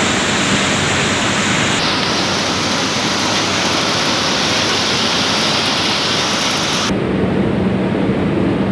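Palm oil mill processing machinery running: a loud, steady mechanical noise. Its character changes abruptly twice, about two seconds in and near the end, where the high hiss falls away and a low hum comes through.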